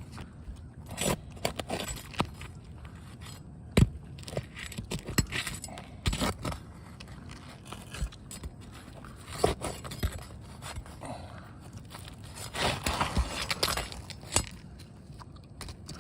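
Scraping, clinking and knocking of a metal tool being worked under brittle 3-tab asphalt shingles to loosen them. There is a sharp knock about four seconds in, and a longer stretch of scraping near the end.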